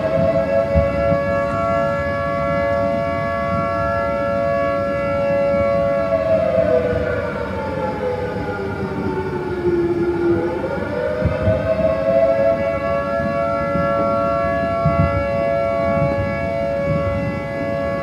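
Federal Signal 2T22 two-tone air raid siren sounding the attack signal, given the reverb of a neighbourhood by convolution with a firework's impulse response. A steady two-note chord starts sliding down about six seconds in and bottoms out near ten seconds. It climbs back to full pitch by about twelve seconds, holds, and starts falling again near the end.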